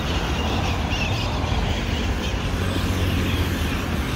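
Steady city street traffic noise with a low rumble of passing vehicles.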